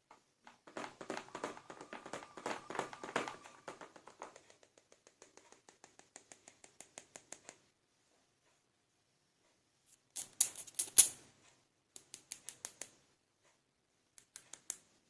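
Hard plastic toy pieces clicking and tapping as they are handled. There is a dense run of clicks, then a string of evenly spaced ticks, a pause, and a louder burst of clicks about ten seconds in, followed by a few short runs of ticks.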